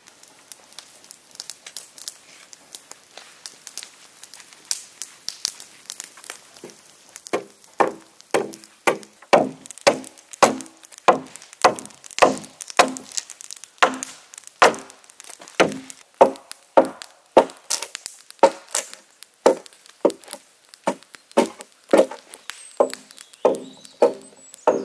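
Axe chopping at the edge of a wooden plank: light, quick cuts at first, then from about seven seconds in heavier blows at about two a second. Each blow rings briefly with a pitched tone from the board.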